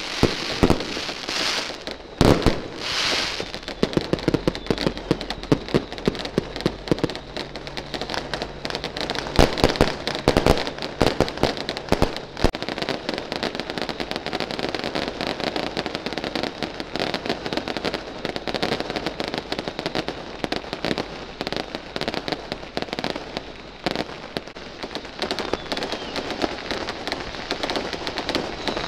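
Fireworks going off in a continuous dense crackle, with louder bangs about two to three seconds in and again around ten seconds in.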